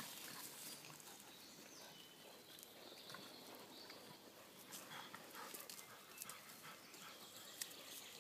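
Near silence with faint rustling and scattered small ticks from dogs moving over grass and dry leaf litter.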